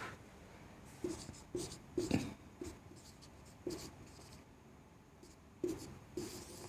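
Marker writing on a whiteboard: a string of short, faint strokes, about seven in all, spaced irregularly.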